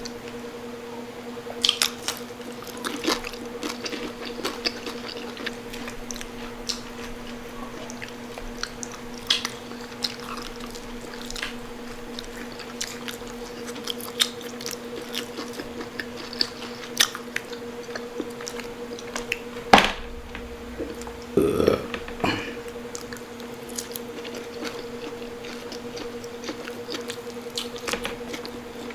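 Close-up eating sounds: crunchy bites and wet chewing of crispy pata, deep-crisped pork knuckle skin and meat, in many short irregular crunches. A steady low hum runs underneath, and a sharp knock about twenty seconds in is the loudest sound.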